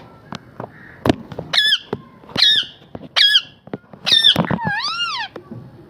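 A parrot making short, squeaky pitched calls, three of them evenly spaced about a second apart, then one more. Near the end comes a longer call that rises and falls in pitch.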